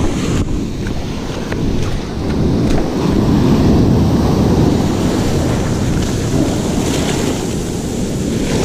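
Ocean surf breaking and washing up the beach, with a low rumble of wind on the microphone; the noise swells about three seconds in.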